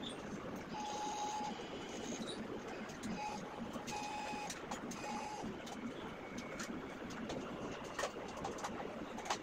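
Stepper motors of a CNC hot-wire thermocol cutting machine whining in several short spells of a steady pitch, over a steady machine hum with scattered light clicks.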